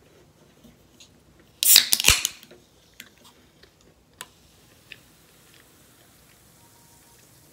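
Small aluminium Sprite can cracked open: a sharp pop and hiss about a second and a half in, followed by a few light clicks from handling the can.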